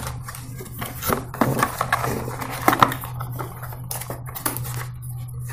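Hands handling a cardboard tripod box and opening its end flap: a string of irregular taps, scrapes and paper rustles, over a low steady hum.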